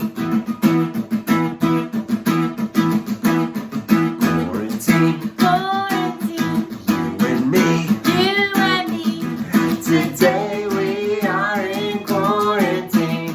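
Background song with fast-strummed acoustic guitar; a singing voice comes in about five seconds in.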